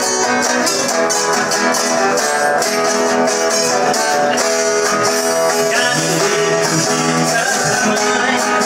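Viola caipira and acoustic guitar playing a Brazilian country (caipira) tune, amplified through a small PA, with a singing voice coming in about six seconds in.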